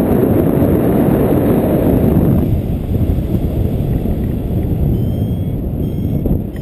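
Wind noise from the airflow of paraglider flight buffeting the camera microphone: a loud, rough rumble whose upper hiss drops away about two and a half seconds in.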